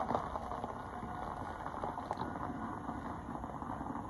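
A car rolling slowly over gravel: a steady crackling rustle of tyres on loose stones with faint scattered ticks.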